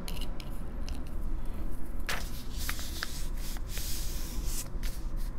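Hands handling a Lamy Safari fine-nib fountain pen and pressing a notebook open: light clicks and paper rubbing, with one sharper knock about two seconds in. Near the end the steel nib touches down and starts scratching on the paper.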